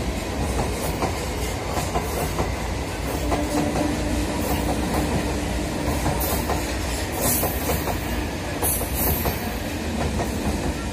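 Electric suburban passenger train passing close by, its wheels rumbling and clattering over the rail joints in a steady run of clicks. A steady tone joins the rumble about three seconds in.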